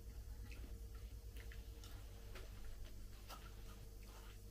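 Faint, irregular small clicks of a teaspoon scooping the flesh out of a halved dragon fruit as it is eaten.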